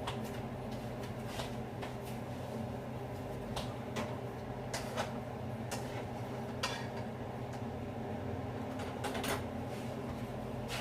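Scattered light clicks and clinks of dishes and utensils being handled, over a steady low electrical hum.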